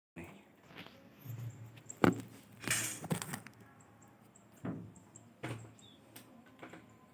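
Scattered knocks and clicks with a brief rustle about three seconds in: hands handling and fitting washing machine parts.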